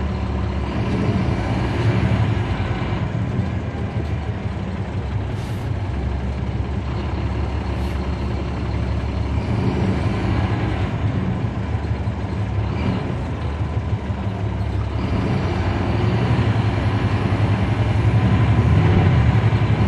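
Caterpillar C13 diesel engine of a 2009 NABI 40-SFW transit bus heard from the rear seats inside the bus, running under way and getting louder over the last few seconds as it pulls harder. Two short air hisses come about five and a half and eight seconds in.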